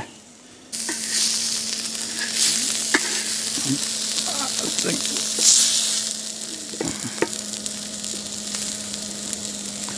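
Steak, peppers and onions sizzling on a hot Tembo Tusk Adventure Skottle pan, with a few clicks and scrapes of a spatula against the pan. The sizzling starts abruptly about a second in.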